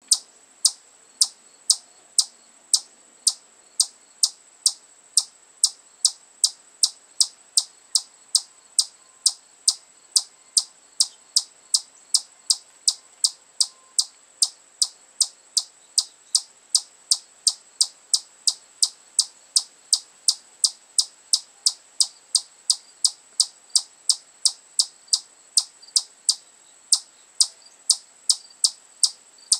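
Eastern chipmunk giving a long, steady series of high, sharp 'chip' calls, about two a second, the repeated chipping typical of its alarm call.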